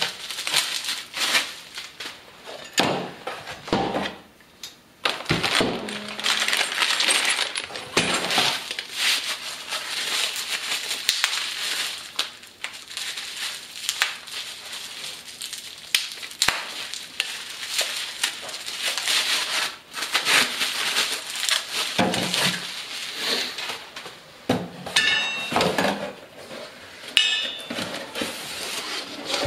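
Bubble wrap and plastic packing crinkling and rustling as parts are unwrapped and pulled from a cardboard box, with scattered knocks and clinks of small metal parts and hardware being set down. A few short metallic rings come near the end.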